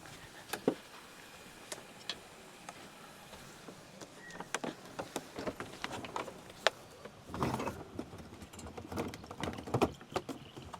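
Scattered light clicks and knocks of glasses, plates and cutlery being set down on a table, with a short burst of rustling and handling about seven seconds in.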